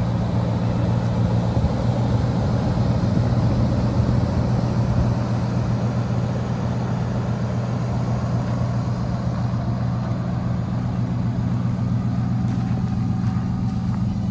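2008 Dodge Dakota pickup's engine idling steadily.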